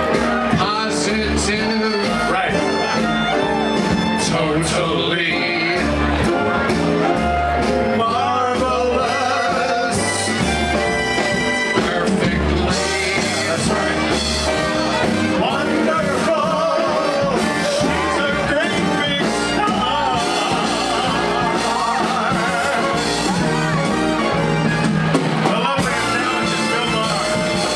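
Live big band with strings playing a swing number, with a man's voice singing over it.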